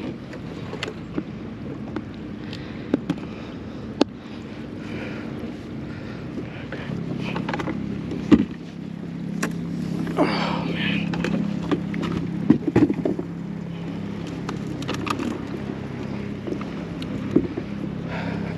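Scattered knocks and clicks of gear being handled on a plastic fishing kayak, with a louder knock a little past the middle. A steady low hum comes in partway through.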